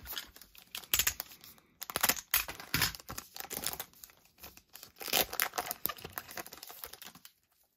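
Trading-card pack's foil wrapper being torn open and crinkled by hands in nitrile gloves: a run of irregular crackles and rips that stops shortly before the end.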